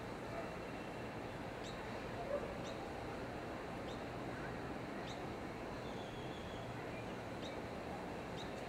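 Outdoor nature ambience: a steady low rush with short, high, quickly falling bird chirps every second or two.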